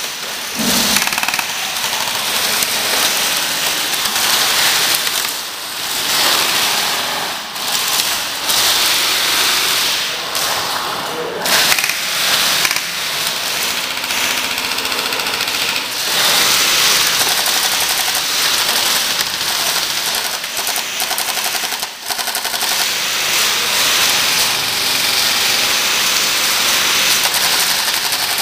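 Airsoft electric guns firing rapid full-auto bursts, overlapping into a continuous rattle.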